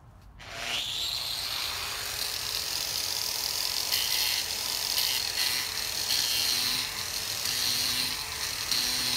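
Angle grinder fitted with a 120-grit sanding disc, starting up with a rising whine about half a second in, then running steadily as the disc sands wood.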